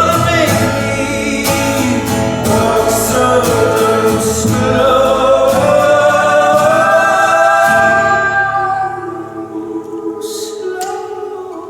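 Live band performing a song with sung vocals over acoustic instruments; the singing holds long notes, then the music drops quieter a little before the end.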